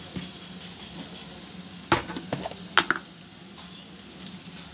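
Onions and green chillies frying in oil in a steel kadai, a quiet steady sizzle. Near the middle come two sharp metal clinks of a ladle or utensil against the cookware, about a second apart.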